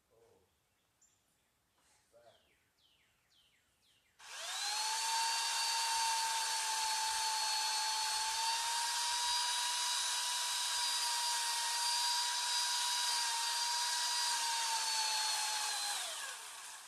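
A power tool's motor spins up about four seconds in, runs at a steady high-pitched whine for about twelve seconds, then winds down near the end.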